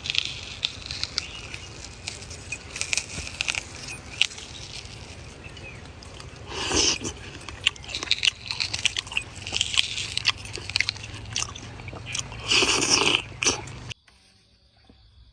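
Someone biting and chewing crisp fresh fruit: a run of crunchy crackles, with two longer, louder crunching bites about seven and thirteen seconds in. It stops abruptly near the end.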